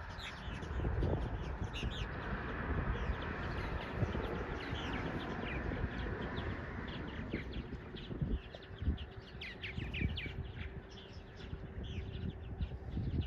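Small birds chirping over and over, many short calls, over a steady low rumble. A faint steady hum joins about halfway through.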